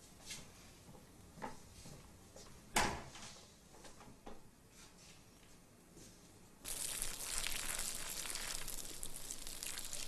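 A few faint knocks and one sharp thump about three seconds in, then a steady hiss that starts suddenly near seven seconds and carries on.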